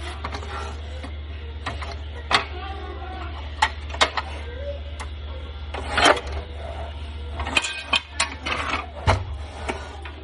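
Irregular sharp clicks and knocks of hard parts being handled, about a dozen of them, over a steady low hum.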